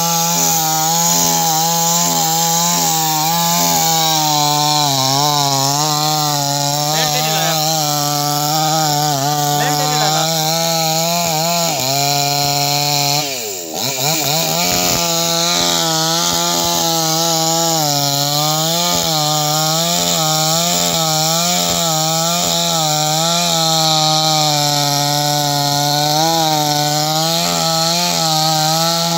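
Chainsaw engine running at high revs while cutting wood, its pitch wavering under load. About halfway through, the revs drop sharply for a moment and then climb back.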